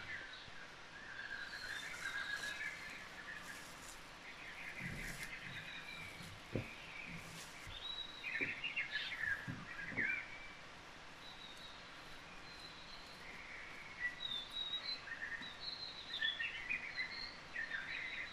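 Nature-sound background track of small birds chirping and twittering over a steady outdoor hiss, with a few soft low thumps in the middle.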